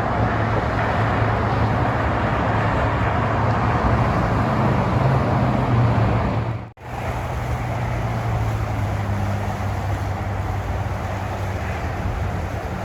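A car driving, with steady road and engine noise. The noise breaks off for a moment about seven seconds in, then carries on.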